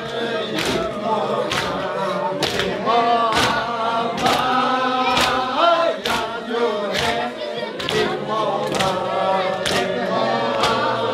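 Group of men chanting in unison, with a steady beat of hand strikes, about one a second, keeping time with the chant.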